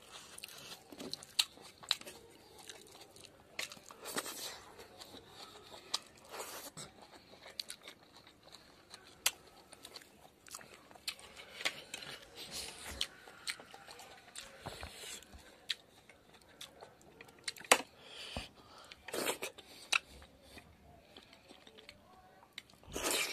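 A man chewing and eating a mouthful of rice and pork fat by hand close to the microphone, with irregular wet smacks and clicks of the mouth and hand. There is a louder burst of the same noise near the end.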